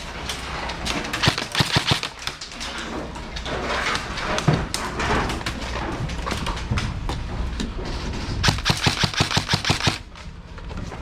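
Airsoft rifles firing in rapid bursts, a run of sharp snaps about a second in and a longer fast run of several shots a second near the end.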